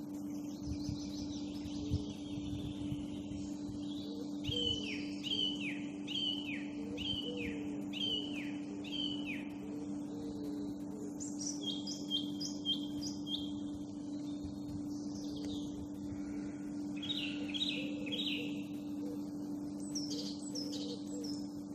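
Songbirds singing: one repeats a run of quick down-slurred notes, and another gives a short series of even, level whistled notes, over a steady low hum.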